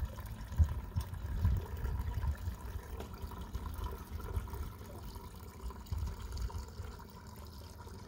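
Rain dripping and trickling outdoors, with a low, uneven rumble underneath.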